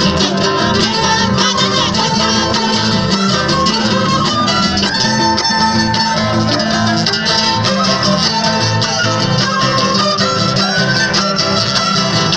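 Live Andean carnival band music played through loudspeakers: acoustic guitar and other strings over a steady beat.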